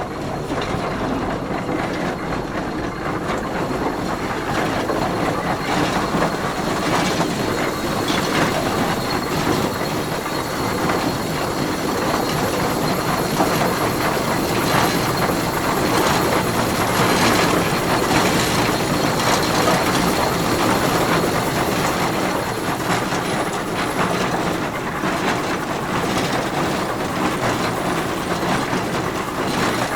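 Tractor running steadily: a dense, even mechanical clatter with no change in speed.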